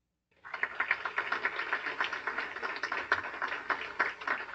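Audience applauding, a dense patter of many hands clapping that starts about half a second in.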